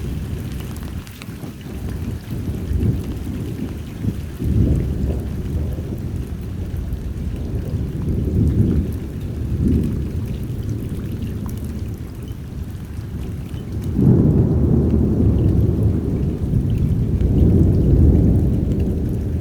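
Thunderstorm: rain falling with thunder rumbling in repeated rolling surges, the longest and loudest roll starting about two-thirds of the way through.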